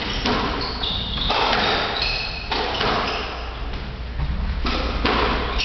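Squash rally: the ball cracks off racquets and the court walls about once a second, each hit ringing in the enclosed court, with short high squeaks of court shoes on the wooden floor between the hits.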